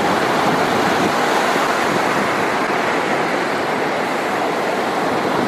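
Steady rush of ocean surf on a sandy beach.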